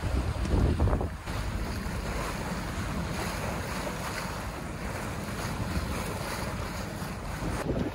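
Wind buffeting the microphone for about the first second, then a steady rush of water along the hull of a sailing yacht under way, with wind over the deck.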